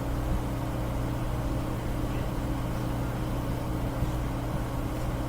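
A steady low mechanical hum with no change in pitch or level.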